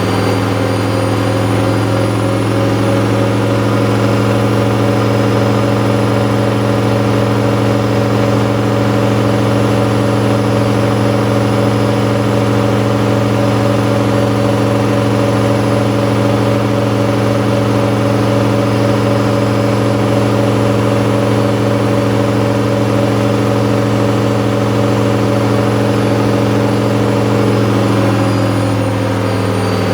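Bauknecht WA 7778 W front-loading washing machine spinning at a steady high speed with a steady hum, its drum bearing already beginning to wear; the pitch starts to drop near the end as the spin winds down.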